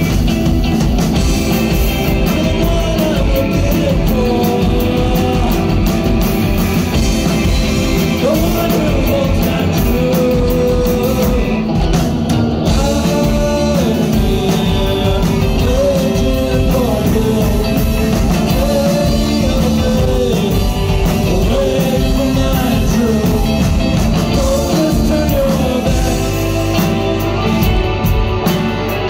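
Rock band playing live, a singer carrying a melody over loud full-band accompaniment. The singing drops out near the end while the band plays on.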